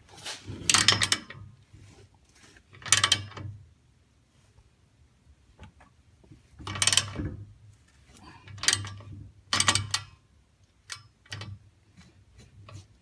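Short bursts of rapid mechanical clicking and metal rattling from hand tools, about seven of them with quiet gaps between.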